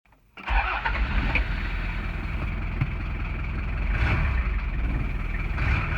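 A car engine running, starting abruptly about half a second in and holding fairly steady.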